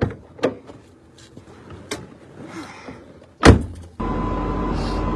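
A car door: a few light clicks, then one loud slam about three and a half seconds in. About four seconds in, the steady hum of a running car starts suddenly, with a faint held tone over it.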